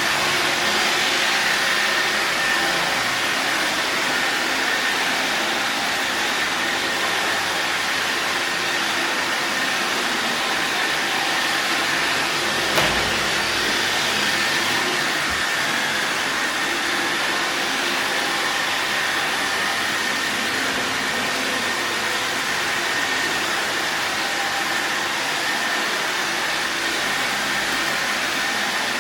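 Robot vacuum cleaner running, a steady whirr of fan and brushes with a thin high whine, and one brief knock about thirteen seconds in.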